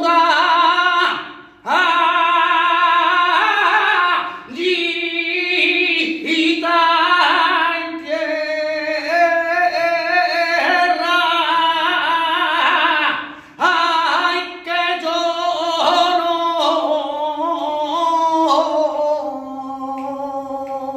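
Male flamenco cantaor singing a martinete unaccompanied, in long held, ornamented phrases with wavering pitch, broken by short breaths a few times.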